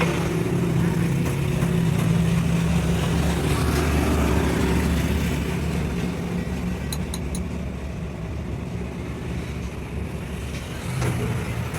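Engine running steadily at low speed, a little quieter in the second half, with a few light metallic clicks about seven seconds in.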